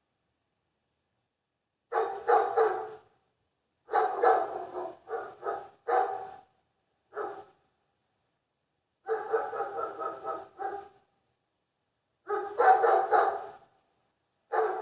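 A dog barking in short runs of two to five quick barks, starting about two seconds in, with dead silence between the runs.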